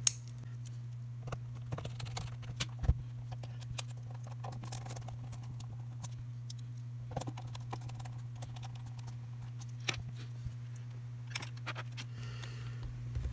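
Scattered light clicks and taps of a small plastic handheld tester being handled, turned over and set down on a silicone work mat, over a steady low hum.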